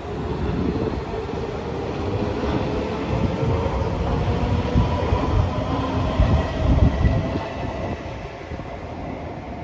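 SMRT C151 MRT train pulling away: a low rumble of wheels on the track with faint steady whining tones from the train. The rumble is loudest about two thirds of the way through and eases off near the end as the last car passes.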